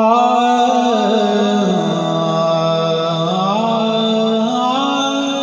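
A man singing a Punjabi naat into a microphone: one long held, wordless melismatic note that starts abruptly. The pitch slides down about two seconds in, then climbs back up in two steps toward the end.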